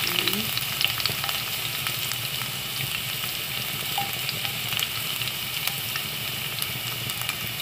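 Chopped garlic frying in hot cooking oil in a pan: a steady sizzle with many small scattered pops.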